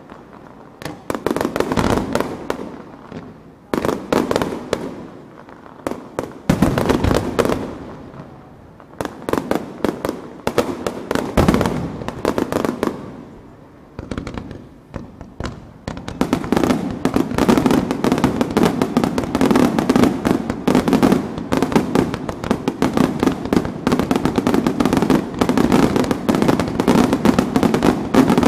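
Aerial fireworks shells bursting in the finale of a display: volleys of booming bangs with short lulls between them, which merge about halfway through into a continuous dense barrage of bangs and crackling.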